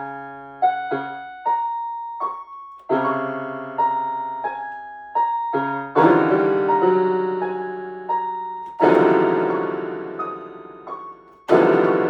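Piano music: a melody of single notes over held chords, with loud, thick chords struck three times in the second half, each ringing and dying away.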